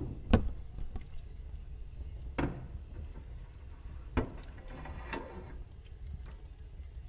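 Logs burning in a fireplace: a wood fire crackling over a low steady rumble, with four sharp pops spread across a few seconds. The loudest pop comes about a third of a second in.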